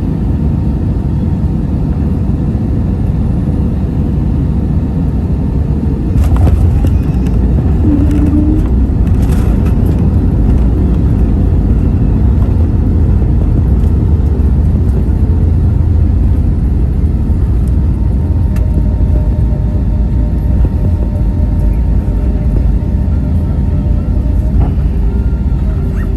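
Steady, loud rumble of an airliner heard from inside the passenger cabin: engine and airflow noise. It grows louder about six seconds in and holds.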